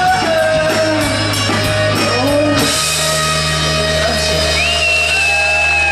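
Rock band playing live: drums and guitars driving until a cymbal crash about two and a half seconds in, where the band lands on a final sustained chord with a high note held over it that drops away near the end.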